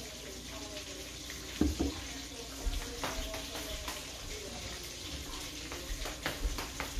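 Ketchup squeezed from a plastic bottle into a stainless steel bowl, with a knock about one and a half seconds in as something is set down, over a steady hiss.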